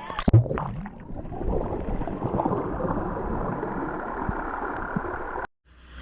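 Small boat under way: a steady rush of water and wind noise, with a few knocks and a thump in the first second. It cuts off suddenly near the end.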